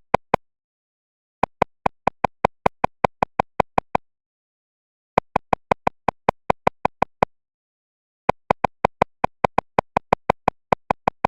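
Rapid runs of short, identical pitched electronic blips, about five or six a second. They come in three bursts of two to three seconds each, separated by silent gaps of about a second.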